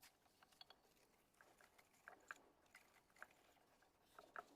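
Faint, scattered crunching and clicking as ceramic fiber insulation is pulled out by hand from around an electric melting furnace's heating coil, a little louder about two seconds in and near the end.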